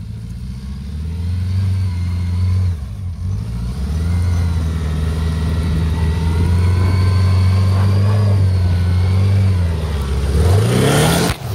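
Sport quad (ATV) engine held at high, steady revs while spinning circles in snow, dipping briefly twice. Near the end it revs up sharply, followed by a loud rush of noise as the quad passes close.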